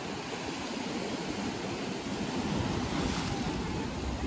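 Rough sea surf breaking and washing over a rocky shore, a steady rushing that swells about halfway through.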